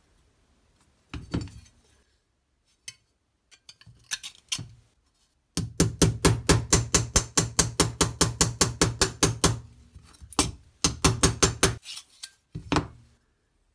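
Rapid, evenly spaced metal taps, about seven a second, from a hammer striking a punch held on a rusty knife handle scale over a steel bar. After a few single knocks comes a run of about four seconds, then two shorter runs near the end; each tap rings briefly.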